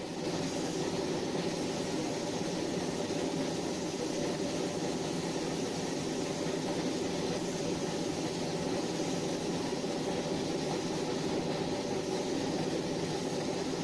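Gravity-feed paint spray gun hissing steadily as it lays thin coats of base paint, over the steady running of an air compressor.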